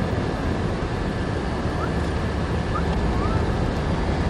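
Steady road and wind noise inside a moving car's cabin, a constant low rumble and rush from the tyres and air.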